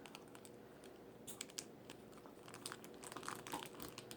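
Faint crinkling and small scattered clicks of plastic wrapping being handled as a small toy bottle is unwrapped.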